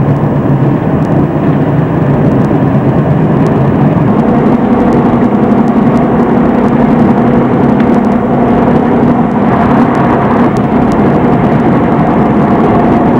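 Steady road noise inside a moving car, with a low hum that comes in about four seconds in and holds.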